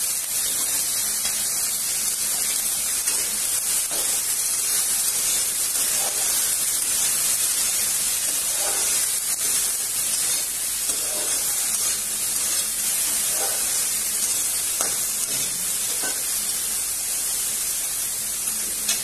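Small dried fish sizzling steadily as they fry in hot oil in a metal kadai, with a few soft scrapes as they are stirred around the pan.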